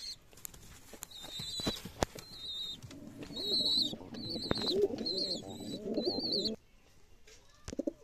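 Domestic fancy pigeons cooing in a low, bubbling run from about three seconds in until shortly before the end, over repeated high, wavering peeps. A few sharp clicks come in the first two seconds.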